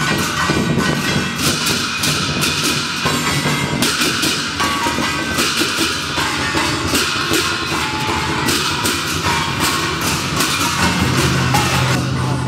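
Music built on loud, dense percussion: drums and cymbals struck in a fast, busy rhythm.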